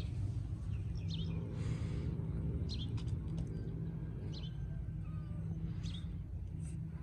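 Small birds chirping in short high calls, one every second or so, over a steady low rumble.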